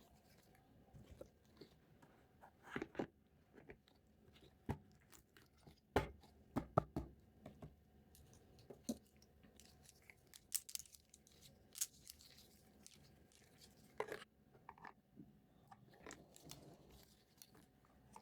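Small plastic toy pieces and packaging handled close up: scattered light clicks, taps and crinkles, with the loudest cluster of knocks about six to seven seconds in.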